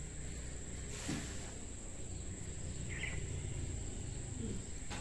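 Insects trilling steadily at a high pitch over low outdoor background rumble, with a short faint chirp about three seconds in.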